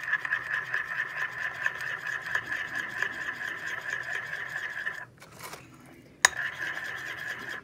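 A spoon stirring matcha powder into thick chia-seed pudding in a ceramic bowl: fast, steady scraping against the bowl. It stops about five seconds in, one sharp knock follows a second later, and the stirring starts again.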